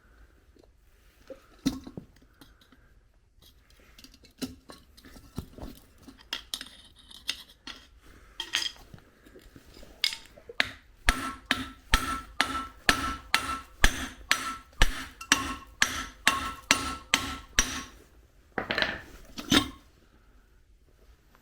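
Hammer striking metal parts of a car's rear differential. Scattered lighter knocks and clinks come first; then, about halfway in, a run of regular hard blows, about two a second, each with a ringing note, and two last blows near the end.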